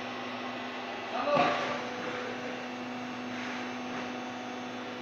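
Hydraulic carton baling press running, a steady hum from its pump motor as the hydraulic cylinder swings the top flap over the chamber. There is a brief louder noise about a second and a half in.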